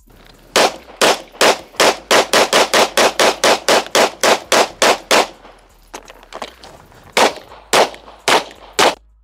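Semi-automatic pistol fired in a fast string of about eighteen shots, the shots coming quicker as it goes, then after a pause of about two seconds four more shots. The hits clang on a steel target.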